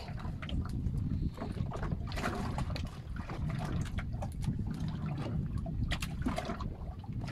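Water slapping irregularly against the hull of a small fishing boat, over a steady low rumble.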